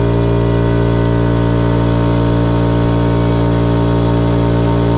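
Makita MAC5200 electric air compressor running steadily, its motor and pump building pressure in the tank; a constant, even hum with a hiss above it.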